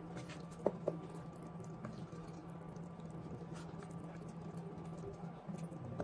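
Wooden spoon stirring rice through a thick coconut-milk sauce in a pot, with faint scattered wet ticks and two sharp knocks close together a little under a second in, over a steady low hum.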